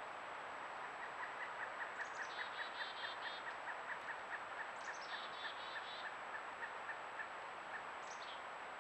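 Wild birds calling in woodland: a run of short chip notes, about three a second, that slows and thins out, and three times a brief falling call that breaks into a rapid trill. Under it is a steady hiss with a faint high whine.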